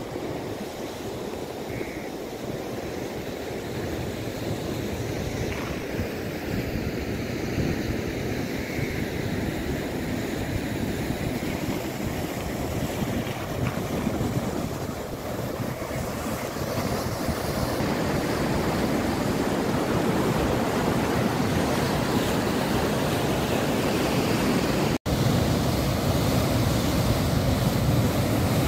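Water rushing and churning out of an irrigation outlet into a concrete channel, a steady noise that grows louder about halfway in, with wind on the microphone. The sound drops out for an instant near the end.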